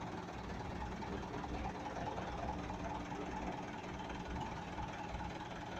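Engine of a small light-decorated truck running steadily at low speed as it rolls slowly past, a continuous low rumble with no revving.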